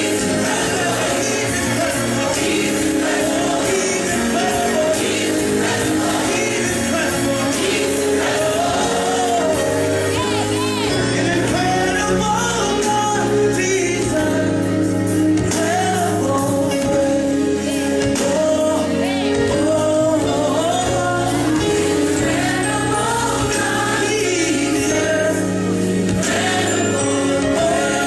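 Gospel music: a choir singing with a lead voice over a band.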